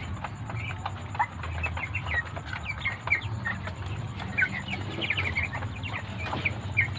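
A flock of 45-day-old broiler chickens peeping and clucking, with many short high chirps overlapping. A few sharp taps come through over a steady low hum.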